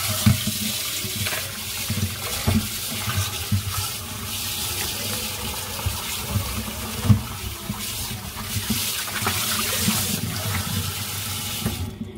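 Kitchen tap running in a steady stream into a plastic bowl in a stainless steel sink, splashing over lemons as hands rinse them, with occasional dull knocks as the bowl and lemons are handled. The water shuts off at the very end.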